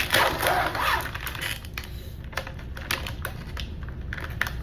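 Plastic cookie packaging being opened and handled, crackling and rustling in a quick, irregular run of small clicks.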